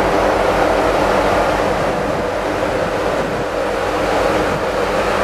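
Steady machinery hum with a rushing, fan-like noise from the AIDAcara cruise ship's onboard machinery and ventilation, heard from the upper deck while the ship lies at the quay.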